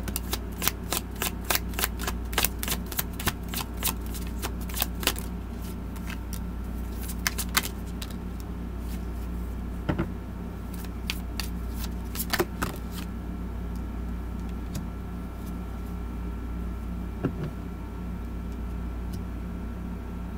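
Tarot cards being shuffled by hand: a quick run of card snaps, about three or four a second, for the first five seconds or so, then a few scattered flicks and taps as cards are drawn and laid down. A steady low hum runs underneath.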